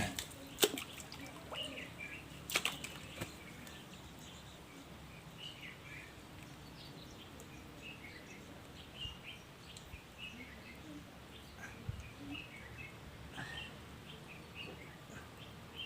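Quiet outdoor background with scattered short bird chirps throughout, and a few sharp clicks in the first three seconds.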